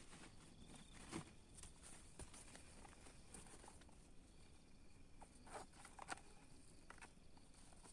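Near silence: faint rustling and a few small clicks of gear being handled, over a faint steady high hiss.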